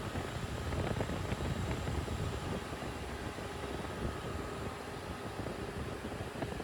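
Electric condenser fans of a Tata bus air-conditioning unit running steadily, a whooshing hum with a faint high whine, their motors freshly fitted with new carbon brushes.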